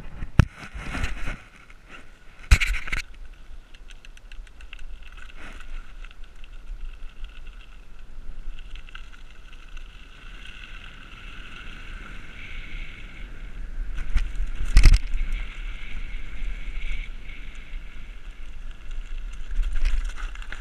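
Bicycle ridden over a rough woodland path, heard from a camera on the bike: a continuous low rumble and rattle from the tyres and frame, a steadier whir through the middle stretch, and sharp knocks from bumps, the loudest about two and a half seconds in and again about fifteen seconds in.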